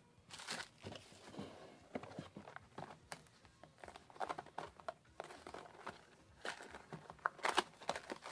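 Trading cards and booster-pack wrappers being handled: irregular rustling and crinkling with scattered sharp snaps.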